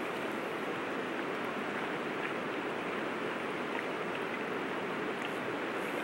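River water flowing steadily, an even rushing wash with no break.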